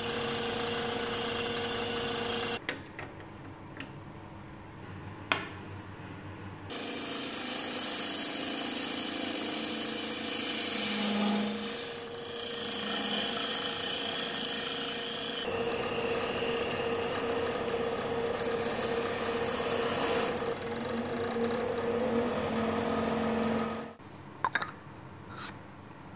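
Wood lathe running with a steady hum, while a turning gouge cuts a spinning wooden blank and a paper towel rubs against the spinning turned piece. The sound changes abruptly several times between cutting, rubbing and quieter stretches.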